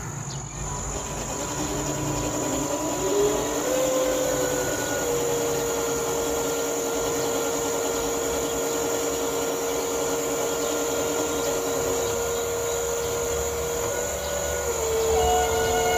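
Homemade remote-controlled crane's motor whining steadily while the boom is raised. Its pitch glides up about four seconds in, holds, then drops a step near the end, over a thin high whine.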